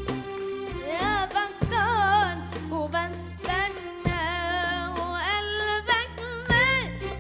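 Arabic song: a melody with wavering, ornamented notes, over sharp percussion strokes and a steady bass.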